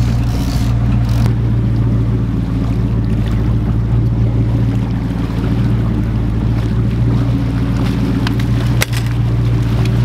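Fishing boat's engine running steadily, a loud low hum, with wind and water noise over it. A single sharp knock sounds near the end.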